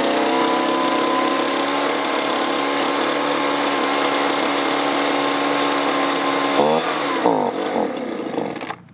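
Two-stroke leaf blower engine running at a steady speed on half choke, then about seven seconds in its speed sags and wavers and the sound drops away near the end. It is bogging, starving for fuel.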